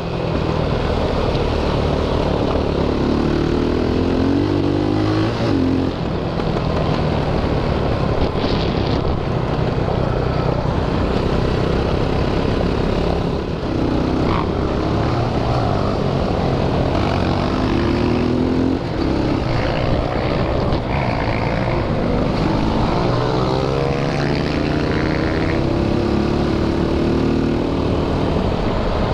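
Quad bike (ATV) engine running under way, its pitch rising and falling again and again as the rider opens and closes the throttle.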